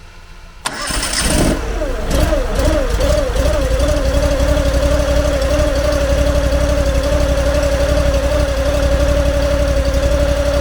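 Honda GX800 V-twin engine on a log splitter starting up about half a second in. Its pitch wavers for a few seconds, then it settles into a steady, even run.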